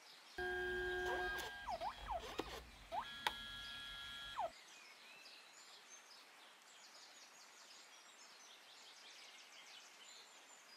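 Kodak Retro Mini 2 dye-sublimation photo printer running: a steady motor whine, then several quick falling-and-rising pitch glides and a few clicks as the paper is driven back and forth through the print passes. It stops about four and a half seconds in, leaving a faint outdoor hiss.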